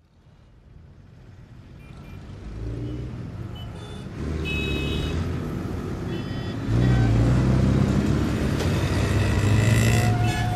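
Street noise fading in and growing louder: a motor vehicle's engine running close by and getting louder, with a few short high-pitched tones about four to five seconds in.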